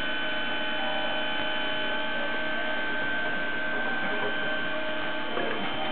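A workshop machine running steadily: an even hum with a constant high whine over it.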